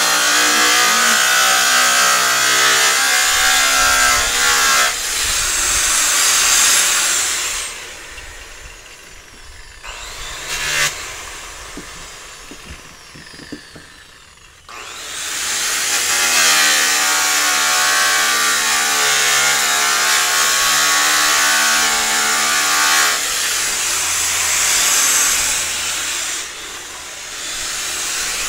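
Handheld electric rotary polisher running at speed while buffing bare aluminium trailer panels, a steady whine that wavers a little in pitch. It stops about seven seconds in, leaving a quiet gap with a couple of light clicks, then starts up again about halfway through.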